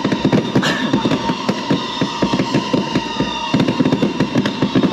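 Fireworks going off in rapid succession: a dense, continuous string of crackling pops and bangs.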